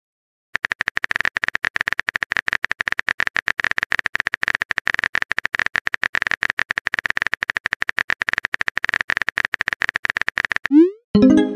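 Phone keyboard typing sound effect: rapid, even clicks, many a second, for about ten seconds. Near the end comes a short rising swoosh and a few chiming tones, the sound of a message being sent.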